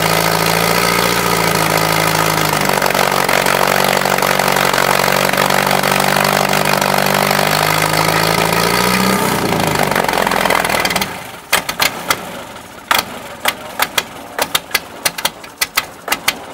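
Portable fire pump's engine running hard at steady revs, rising briefly in pitch and then shut off about eleven seconds in. After it stops, a run of sharp, irregular clicks and knocks.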